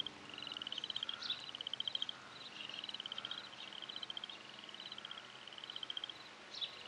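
Chirping insect, cricket-like: a run of short, rapid trills, each under a second long, repeating about once a second, with a couple of brief higher chirps in between.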